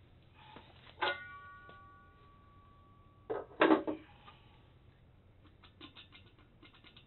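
Metal chair pedestal hardware being handled. A sharp metallic clank about a second in rings on for about two seconds, a louder clatter follows, and a few light clicks come near the end.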